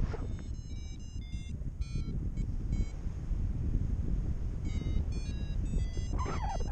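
Paragliding variometer beeping in quick runs of short high tones of shifting pitch, in two spells, over a steady rush of wind on the microphone. Beeping like this is the vario's climb signal: the glider is rising in lift.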